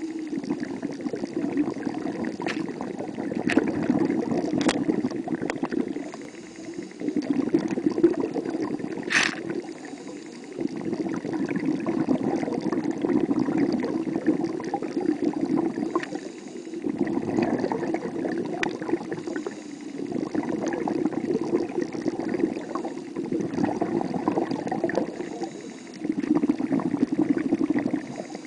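Muffled underwater gurgling and bubbling of water around the camera, swelling and easing every few seconds, with a few sharp clicks in the first third.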